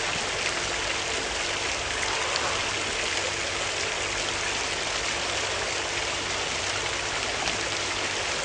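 Steady splashing of a small street fountain's water jets, an even hiss of running water.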